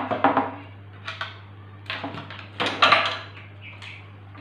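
Light knocks, taps and clatter of balsa-wood and foam model-airplane parts being handled and fitted together on a wooden table, in irregular bursts with the loudest near the start and about three seconds in. A steady low hum runs underneath.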